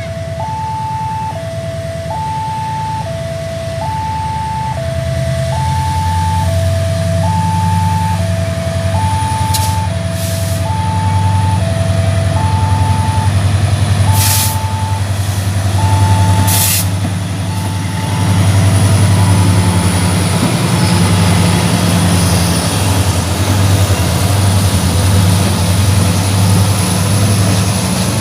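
Railway level-crossing warning alarm sounding an alternating two-note electronic tone, about one high-low cycle a second, fading after about twelve seconds, while a diesel locomotive's engine rumbles loudly as the train approaches and passes. Brief hisses break in three times in the middle.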